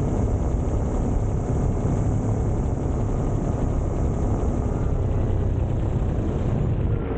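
Electric paramotor (SP140) in flight, its motor and propeller running steadily.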